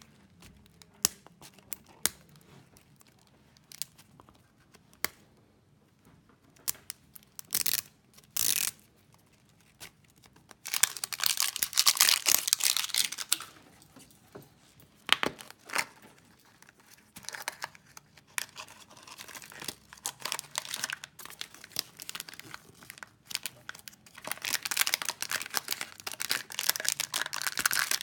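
Hands unwrapping a foil-wrapped chocolate surprise egg and then the small plastic bag holding its toy. Scattered small clicks and light rustles come first, then a loud spell of foil crinkling a little before halfway, and crinkling and tearing of the plastic wrapper near the end.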